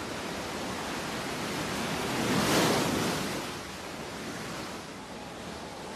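Sea waves breaking on a rocky shore: a steady wash of surf that swells as one wave breaks about two and a half seconds in, then eases off.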